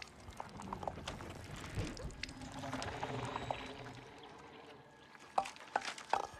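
Film sound effects of a giant monster's tentacles probing around a tree trunk: faint scattered clicks and creaks with a soft noise swelling in the middle, and a few sharper clicks near the end.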